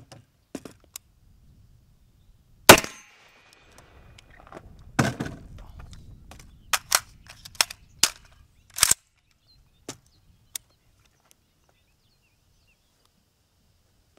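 A single AR-15 rifle shot fired to confirm the zero, with a brief ringing tail. About two seconds later comes a quieter bang, then several short sharp metallic clicks and two fainter ones.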